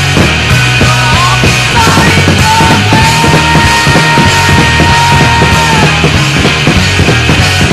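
Loud background music with a steady beat; a single lead note is held for about three seconds in the middle.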